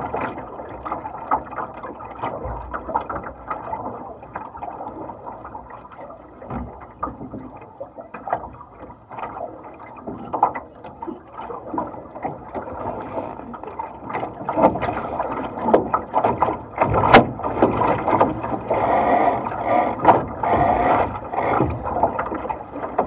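Water splashing and slapping against the hull of a Laser sailing dinghy under way, with scattered short knocks. It grows louder and busier about two-thirds of the way through.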